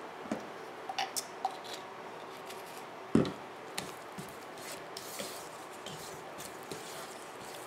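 A few light clicks, then a louder knock about three seconds in, followed by a silicone spatula stirring and scraping soft, wet mashed banana in a mixing bowl.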